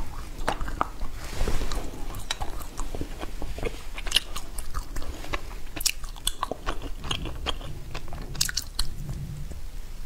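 Close-miked biting and chewing of an edible lipstick-shaped candy: irregular crisp clicks and small crunches at the mouth, with a louder noisy stretch about a second in.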